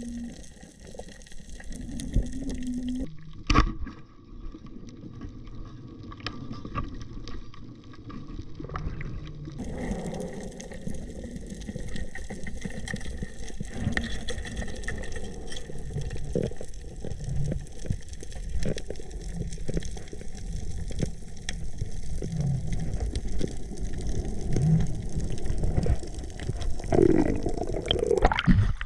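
Water sloshing and gurgling, muffled and steady, with scattered clicks and a sharp knock a few seconds in.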